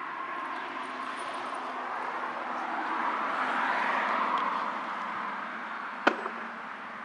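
Outdoor background noise with no siren tone: a broad hiss that swells to a peak about four seconds in and fades again. A single sharp click comes about six seconds in.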